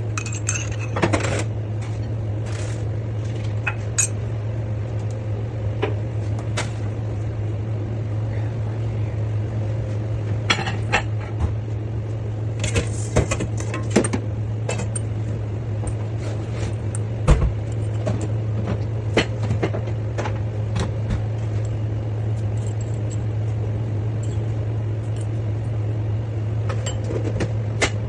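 Scattered clinks and knocks of kitchen utensils and dishes over a steady low hum.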